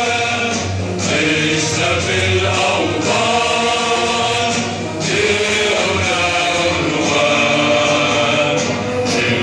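Group of voices singing or chanting together in long held phrases, with brief breaks between them.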